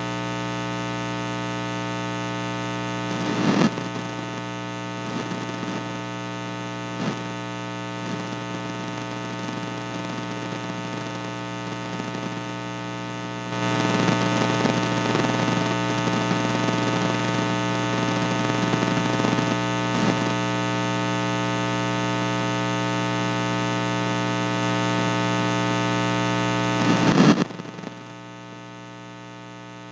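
Loud, steady electrical mains hum and buzz with many overtones and no speech, with a few brief noisy swells. It gets louder about halfway through, then drops suddenly to a much quieter hum near the end.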